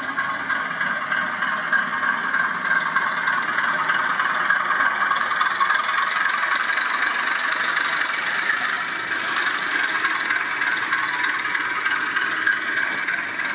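HO-scale model of a Czech class 749 'Bardotka' diesel locomotive hauling passenger coaches past. It makes a steady mechanical running noise with a rattle, swelling slightly as the train goes by.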